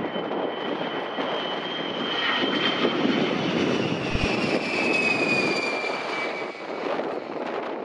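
Boeing E-3A AWACS's four TF33 turbofan engines as the aircraft passes low and close on approach with gear down. A heavy jet rumble with a high whine swells to its loudest in the middle, and the whine drops in pitch as the aircraft goes by.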